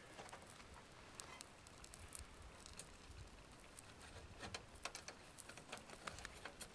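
Near silence with faint, scattered crackling ticks from the hot coconut-shell coals and the eggs cooking on the small folding wood stove, a few slightly louder ticks about halfway through and near the end.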